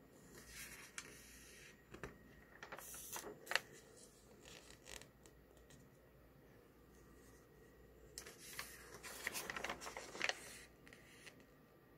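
Glossy magazine pages being turned and handled: paper rustling in short bursts near the start, around three seconds in, and in a longer stretch near the end.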